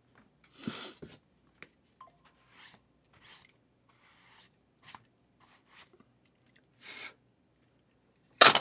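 Trading-card pack and box packaging being opened by hand: a string of short crinkling rips and rustles, with one loud sharp snap near the end.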